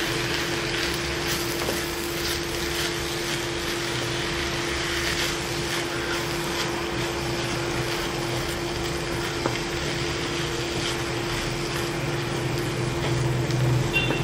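Wooden spatula stirring and scraping drumstick leaves with onion and grated coconut in an oiled frying pan while they sauté, with light crackling from the frying. A steady hum runs underneath.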